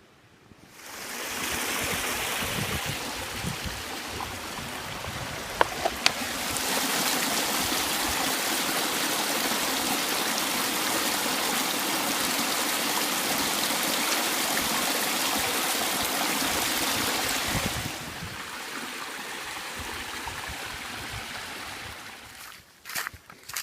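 A stream's water running over rocks, a steady rushing noise that steps louder about six seconds in and drops back near the end, with a few sharp clicks about five or six seconds in.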